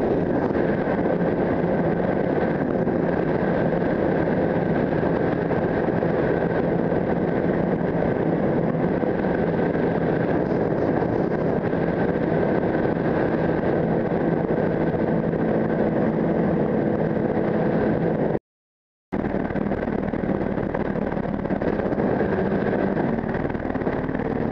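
Sport motorcycle engine running at a steady cruising speed, heard over wind rush on a helmet-mounted camera. The sound cuts out completely for about half a second roughly three quarters of the way through.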